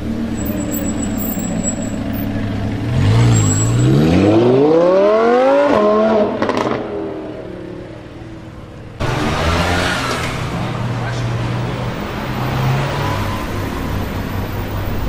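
Lamborghini Huracán's V10 with a Fi-Exhaust accelerating hard, its note rising steeply for about three seconds before backing off. After a sudden cut, the engine runs low and rough at lower revs, echoing in a tunnel.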